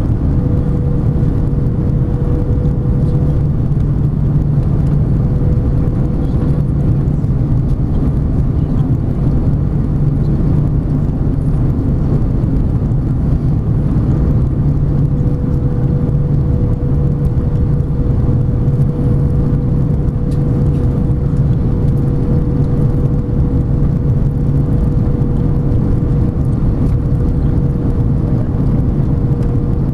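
Airbus A330 cabin noise heard from a window seat beside the engine on approach to landing: a loud, steady rumble of the engines and the airflow. A thin steady hum rides on top of it, drops out after a few seconds and comes back about halfway through.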